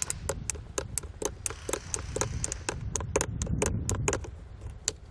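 Ratchet buckles on the straps of a clip-on towing mirror clicking as the toothed straps are ratcheted tight, rapid clicks about four a second that stop near the end.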